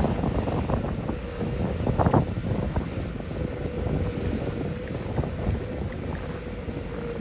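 Heavy diesel construction machinery running, with a steady whine from about a second in and a single knock about two seconds in. Wind buffets the microphone.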